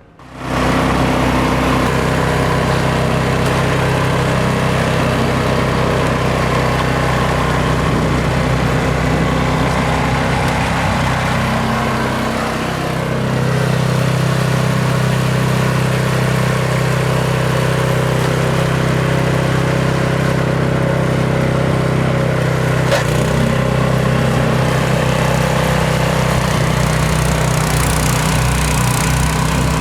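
Small petrol engine, typical of a snowblower, running steadily at high speed, dipping briefly about twelve seconds in before recovering.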